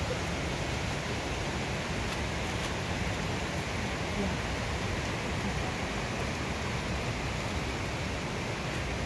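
Steady rushing of water, an even noise without breaks.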